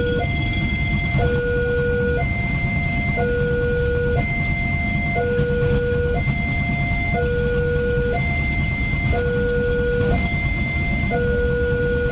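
Railway level-crossing alarm from the pole-mounted loudspeaker: an electronic two-tone warning that alternates between a higher and a lower pitch about once a second, sounding while the barriers are down for an approaching train. Under it, a low rumble of waiting motorbike traffic.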